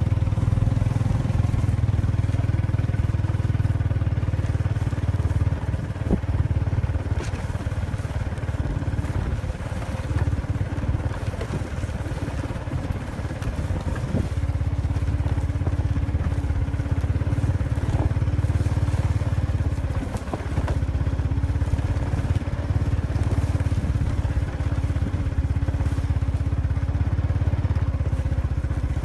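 A small engine running steadily at a low, even pitch, with a few light knocks and clicks over it.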